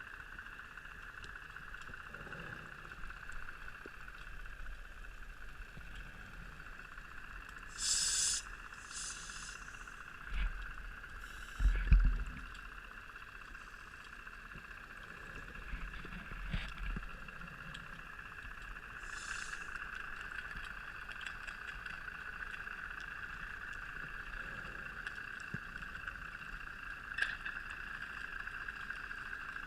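Underwater sound during a scuba dive: a steady hum with a few short hissing bursts of exhaled regulator bubbles and some dull low knocks.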